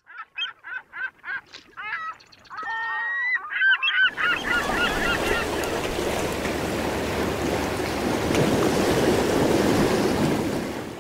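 Gulls calling, a run of harsh repeated cries several a second. From about four seconds in a steady wash of sea waves comes in, and the calls die away under it.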